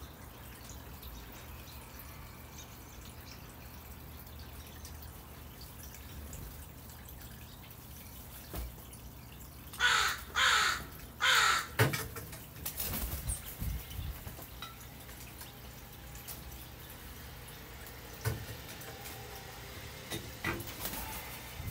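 Northwestern crow cawing three times in quick succession about halfway through, followed by a scatter of soft knocks and taps.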